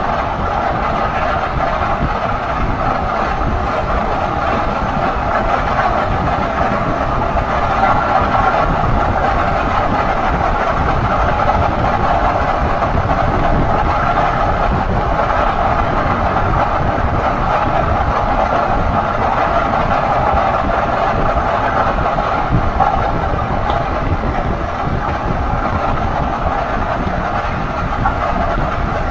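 A 2016 Ford F-150 SuperCrew on the move, with a steady whirring drone over a low road rumble that the owner takes for a dry bearing.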